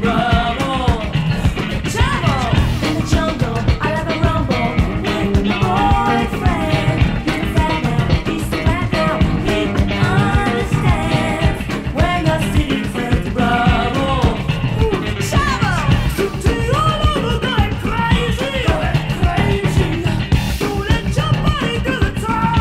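Music: a song with a singing voice over band backing with a steady beat.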